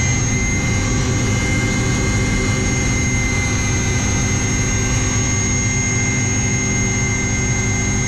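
Cabin noise of a Kamov Ka-226 coaxial-rotor helicopter running: a loud, steady drone of turbine and rotors with two steady high-pitched whines over it.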